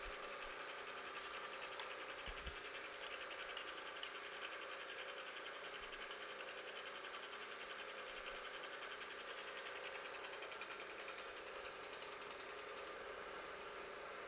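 Milling machine running steadily, its ball end mill cutting a half-hole into the edge of a metal bar with an even mechanical whir.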